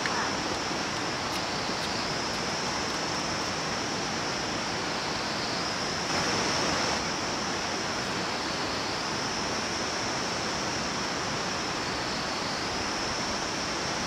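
Steady outdoor rushing noise with a constant high, shrill hiss on top, swelling briefly a little past the middle; no distinct events.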